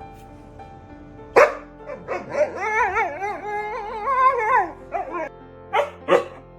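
A husky talking back: a sharp bark, then a long call that wavers up and down in pitch for about three seconds, followed by a few short yips near the end.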